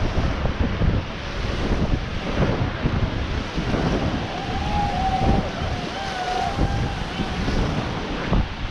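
River water rushing around a raft, with wind buffeting the microphone in a heavy low rumble.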